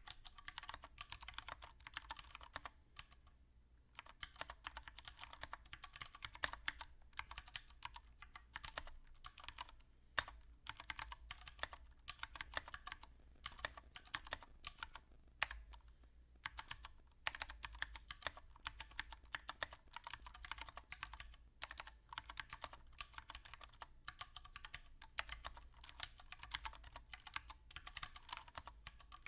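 Typing on a Mistel MD770BT mechanical keyboard with Cherry MX Brown switches, standing on its rubber feet: quick runs of key clicks broken by short pauses, with a few louder single key strokes.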